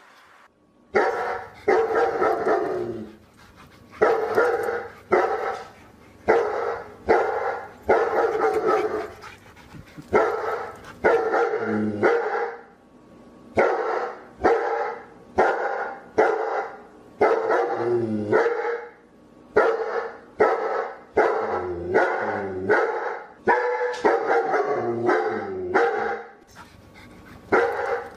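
Dog barking over and over, about twenty barks roughly a second apart, with a short break a little before the middle.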